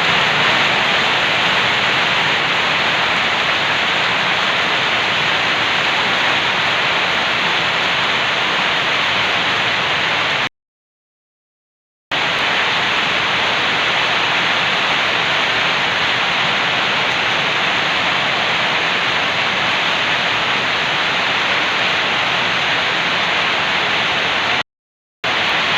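Heavy rain, a steady dense hiss. It cuts out to dead silence twice: for about a second and a half near the middle, and briefly near the end.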